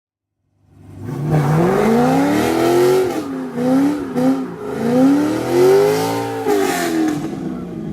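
Corvette C6 Z06's LS7 V8 engine being revved several times, its pitch climbing and falling back, with two short blips in the middle. It comes in about a second in.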